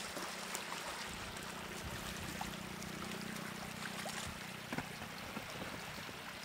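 Shallow moving water trickling and splashing, with scattered small clicks and a low steady hum underneath.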